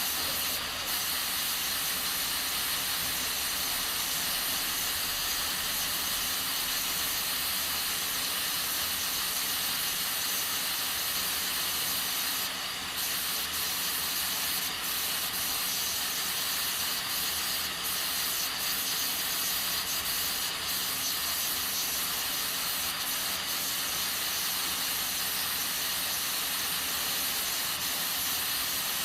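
Aluminium pressure cooker hissing steadily as steam escapes from its valve under pressure, with a brief dip about 13 seconds in.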